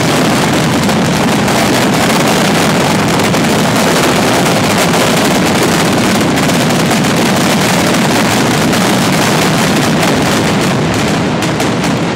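Mascletà firecrackers (masclets) exploding so fast that the bangs run together into one continuous, very loud noise, thinning into separate bangs near the end. This is the ground-level closing barrage (terremoto) of the mascletà.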